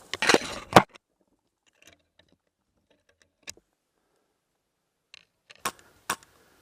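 A short clattering burst of sharp clicks right at the start, then scattered single clicks, two of them about half a second apart near the end.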